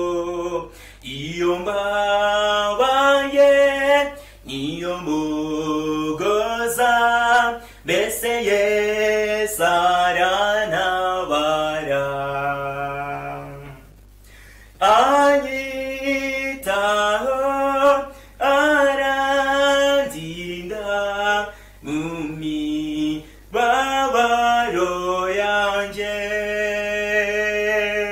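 A man singing a Kinyarwanda hymn solo and unaccompanied, in long held notes with short breaths between phrases and a brief pause about halfway.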